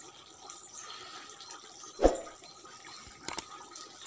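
Low, steady background noise with a single sharp thump about two seconds in, then a couple of faint clicks.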